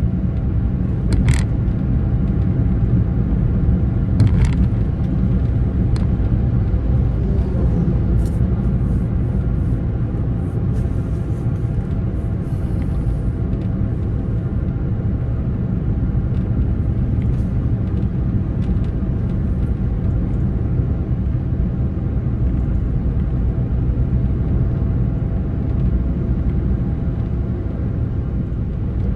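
Steady low rumble of a vehicle driving along a road, with a few brief faint ticks in the first several seconds.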